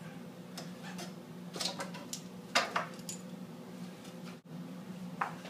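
Clinks and clanks of a steel wrench and bench vise against an iron railing bar clamped in the vise, several sharp metallic knocks scattered over a few seconds, the loudest about two and a half seconds in, over a steady low hum.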